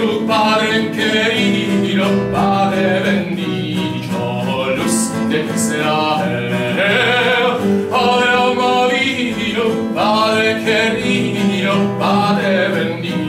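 A man singing in classical style, holding long notes with a wavering pitch, accompanied by a plucked classical guitar.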